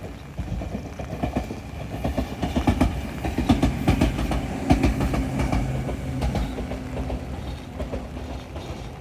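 Tobu 10000-series electric train passing by, its wheels clacking rapidly over the rail joints under a steady low motor hum. It is loudest about halfway through, then fades as it moves away.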